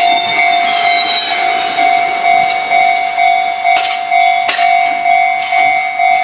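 Japanese railway level-crossing warning bell ringing, a pitched electronic clang repeating about twice a second, with a few sharp knocks from a train on the crossing.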